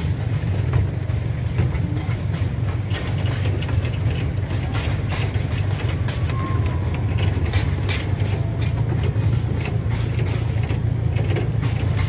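Ride aboard a petrol-engined miniature passenger train: a steady low engine and running rumble with irregular clicks and rattles.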